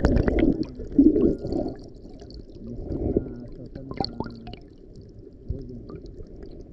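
Muffled underwater sloshing and gurgling of shallow sea water heard through a submerged camera, loudest in the first second or so, with a few faint clicks later on.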